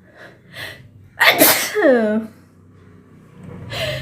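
A woman sneezes once, loudly, about a second in, after two short sharp inhales; the sneeze ends with her voice sliding down in pitch. Near the end a rising breath builds toward the next sneeze. The sneezes are set off by sniffing black pepper powder.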